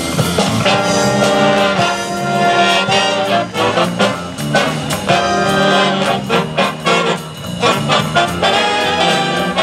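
A jazz big band playing live: trumpets and trombones sound held chords together over electric bass and drum kit.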